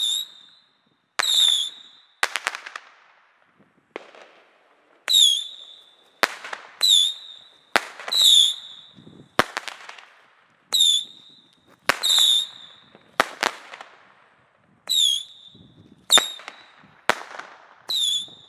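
Nico 'Flying Arrows' whistling firework battery firing its shots one after another, each a short high whistle that dips and then holds its pitch, with a sharp bang, about one a second with a short lull a few seconds in.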